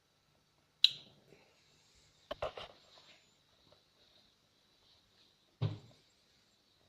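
A sharp click with a brief ring about a second in, a quick rattle of clicks and knocks a moment later, and a dull thump near the end, over a faint steady high-pitched whine.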